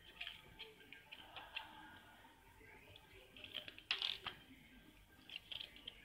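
Pages of a paper instruction booklet being turned by hand: faint rustles and light flicks of paper, with the loudest flurry about four seconds in.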